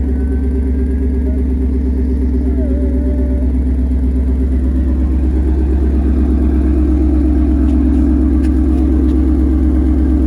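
Ford Mustang V8 running steadily with a rapid, even exhaust pulse. The owner says the exhaust leaks right at a clamp.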